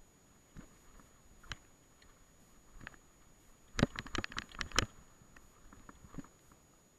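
Mountain bike rattling and knocking as it rides over a bumpy grass track, with scattered sharp clicks and a quick burst of loud knocks about four seconds in.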